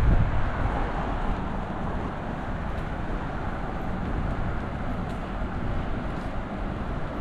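Steady city street ambience of distant road traffic, with a low wind rumble on the microphone that eases off in the first second.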